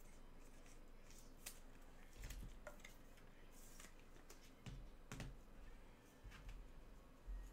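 Faint, scattered clicks and soft thumps of trading cards and their cardboard packaging being handled on a desk, with a brief rustle about three and a half seconds in.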